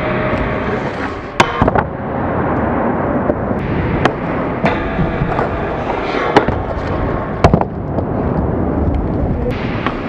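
Skateboards grinding and sliding along a long metal flat bar, a steady scraping rush, with several sharp cracks of boards popping and slapping down.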